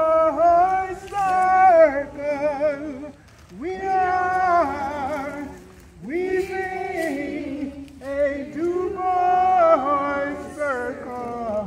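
A group of men and women singing a slow chant together, in four phrases of long held notes with short breaks between them.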